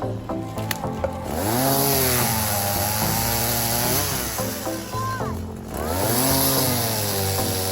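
Two-stroke chainsaw revving up, holding at high speed, dropping back briefly and revving up again, with background music underneath.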